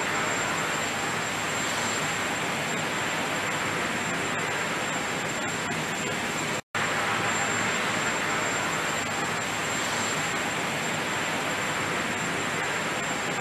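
Steady rushing noise with a faint high whine running through it, broken by a split-second dropout about six and a half seconds in.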